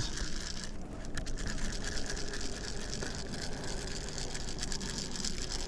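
Cheap fishing reel cranked steadily, its gears giving a fast, even ticking as a hooked fish is reeled in.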